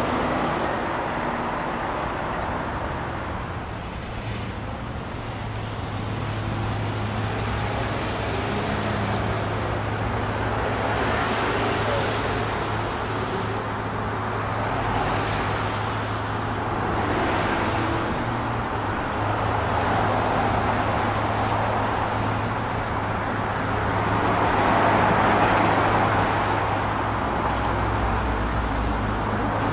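City road traffic: a continuous wash of car engines and tyres, swelling and fading as vehicles pass one after another, the loudest pass coming near the end, over a steady low hum.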